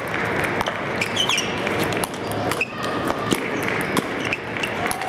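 Table tennis ball clicking sharply against sandpaper bats and the table, about one click every half second at uneven spacing, over a steady murmur of the crowd in a hall.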